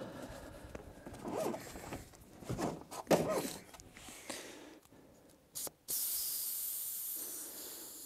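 Several strokes of a small floor pump pushing air into a bicycle tire's inner tube, about one a second. About six seconds in, a steady hiss of air escaping at the valve, fading over about two seconds.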